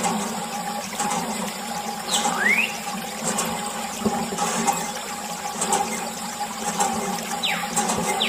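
Steady stream of water from a thin plastic hose splashing onto a muddy toy tractor, over a steady low hum. Two brief whistle-like glides cut through, one rising about two seconds in and one falling near the end.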